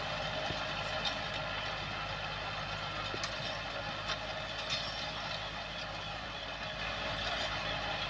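Farm tractor's engine running steadily under load as it tills dry soil.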